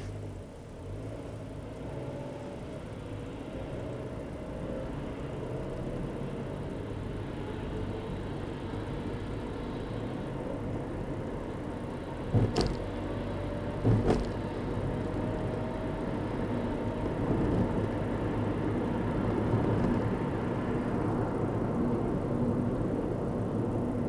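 A car driving, heard from inside the cabin: steady engine and road noise that grows as the car picks up speed, with a faint rising whine. Two sharp knocks about halfway through.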